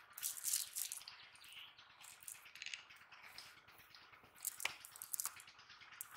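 Faint rustling with a few soft clicks and taps, as of a cast net shifting on grass with the catch inside it.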